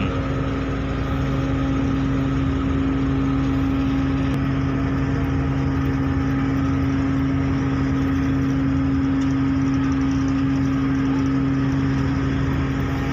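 Ro-ro car ferry's diesel engines running with a steady low hum of constant pitch as the ship comes in to berth.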